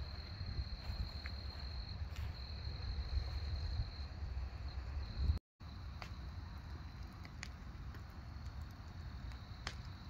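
Wood fire in an outdoor fire pit crackling, with a few sharp pops, over a steady low rumble and a steady high-pitched insect trill. The sound cuts out for a moment about halfway through.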